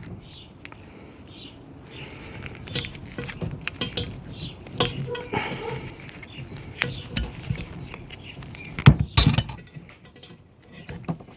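Handling noise of stainless braided hose and small metal fittings: scattered light clinks, ticks and short scrapes, with two louder knocks a bit before nine seconds in.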